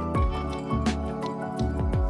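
Background music with a beat: deep bass drum hits that drop in pitch, ticking hi-hats and held synth notes.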